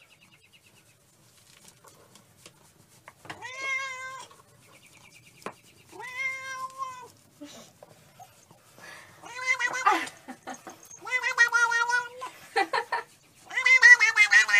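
Tabby cat meowing: two long, drawn-out meows a few seconds apart, then from about nine seconds in a louder, quicker run of meows that crowd into one another.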